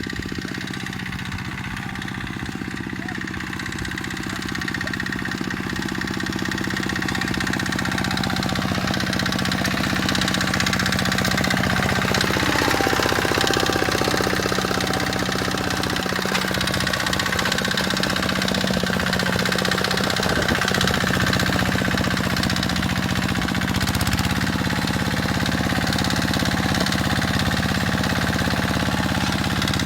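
Kubota tractor engine running steadily, growing louder over the first ten seconds or so, its note shifting about two-thirds of the way through.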